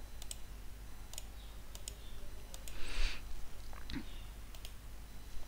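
Computer mouse clicking several times, often in quick pairs. A brief rush of noise about three seconds in is the loudest sound. Both sit over a low steady hum.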